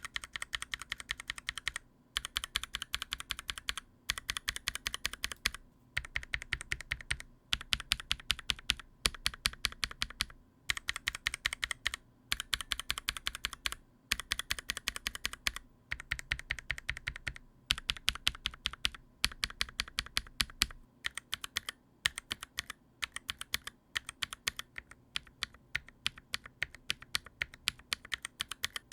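Glorious Panda tactile mechanical keyboard switches, stock and with lubed leaf springs, spammed rapidly on a NovelKeys NK65 Entry Edition keyboard: bursts of fast clacking keystrokes about two seconds long with short pauses between them. About two-thirds of the way through the clacks lose some of their low thud.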